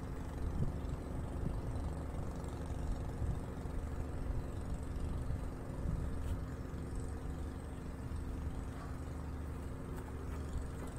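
An engine running steadily at idle, a low even hum that holds the same pitch throughout.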